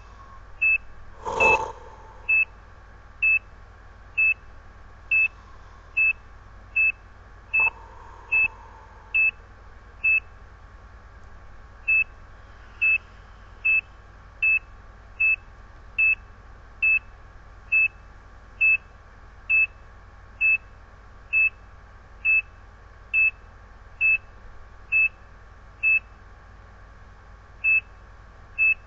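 ECG monitor's heartbeat tone: a short, high beep with each heartbeat, a little under once a second (about 70 a minute). Twice the beeps pause for about two seconds. A knock sounds about a second and a half in.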